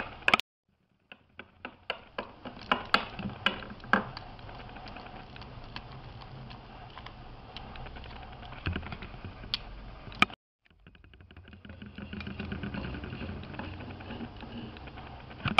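Small plastic toy figures and plastic containers handled on a tabletop: scattered light clicks and taps over a steady hiss, thickest in the first few seconds and again near the end. The sound cuts to silence briefly twice, near the start and about ten seconds in.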